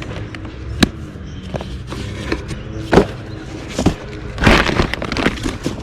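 Books being handled in cardboard boxes: a few sharp knocks as books are picked up and set down, and a short rustle about four and a half seconds in, over a low rumble.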